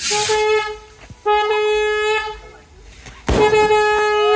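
A horn sounding three long blasts, each about a second, all at the same steady pitch. A sharp bang comes about three seconds in.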